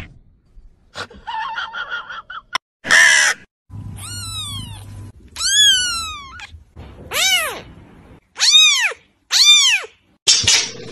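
Young kitten meowing: a string of high, thin mews, each rising then falling in pitch, the last three short and evenly spaced.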